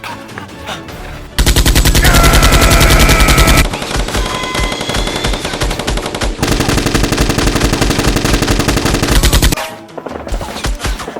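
Rapid machine-gun fire over background music. One loud burst starts about a second and a half in and lasts about two seconds, the firing goes on more quietly, then a second long loud burst stops about a second and a half before the end.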